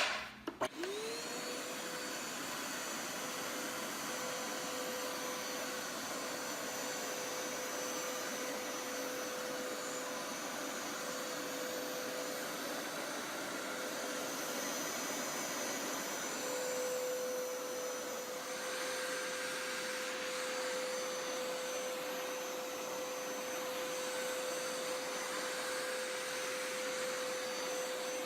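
Hoover Power Scrub Elite Pet upright carpet cleaner switched on with a click. Its motor spins up with a rising whine in about a second, then runs steadily with a constant tone.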